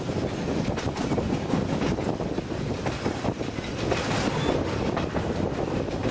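TAZARA passenger train running along the track, heard from aboard: a steady rumble with wheels clacking over the rails at irregular intervals.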